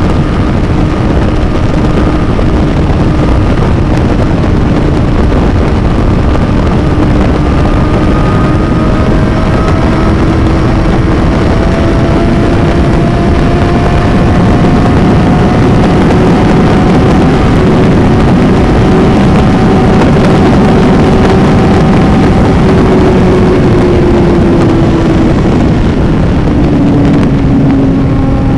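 Suzuki inline-four motorcycle engine running at highway speed under a loud, steady rush of wind noise. The engine note climbs slowly in pitch, then drops a few seconds before the end.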